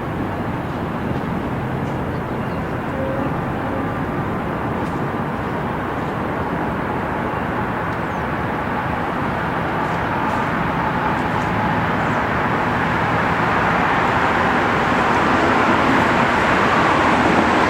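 City traffic ambience, a steady rush that grows louder toward the end as a vehicle draws near. Faint steady tones of distant outdoor warning sirens sit underneath in the first half.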